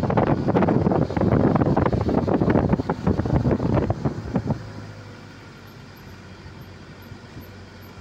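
Wind buffeting the microphone over the rumble of a moving vehicle, loud and gusty at first, dropping about four and a half seconds in to a much quieter steady hum.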